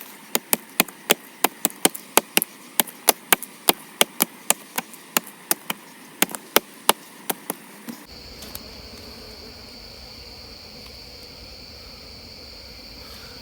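A blade chopping into a hollow tree stump in quick, even strokes, about three a second, as it is split open to reach a wild bee nest. The chopping stops after about eight seconds and is followed by a steady, high-pitched insect drone.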